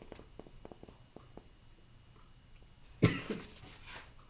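A few faint ticks, then about three seconds in a sudden, short cough from the reader.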